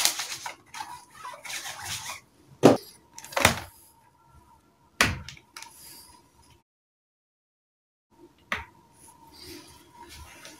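Hand and cloth rubbing over the lid of a Lenovo laptop, then three sharp knocks as the laptop is handled and its lid opened. After a short dead gap comes one more click.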